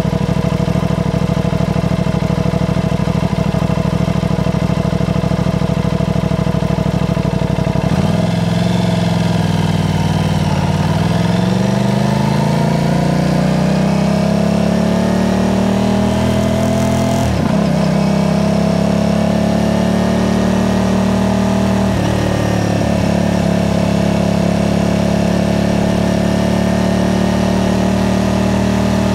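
A 2020 Aprilia RS660's 659 cc parallel-twin engine with a Mivv aftermarket exhaust idles steadily, then pulls away about eight seconds in. Its pitch climbs as it accelerates, breaks sharply at two upshifts about nine and fourteen seconds into the run, and then settles into a steady cruise.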